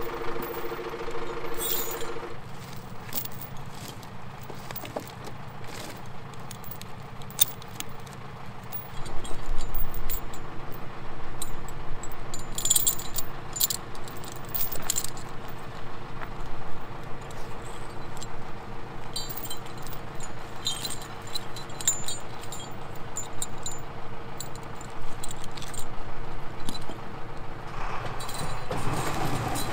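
Steel choker chains clinking and rattling in short spells as they are wrapped around logs, over the steady running of a Zetor Proxima 90 forestry tractor's diesel engine.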